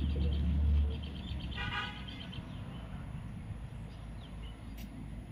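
Low rumble of a passing motor vehicle, loudest in the first second, then a short horn toot about a second and a half in.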